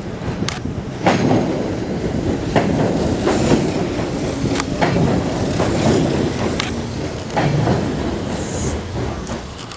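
A train rolling over rail joints and points: a steady rumble with irregular metallic clanks.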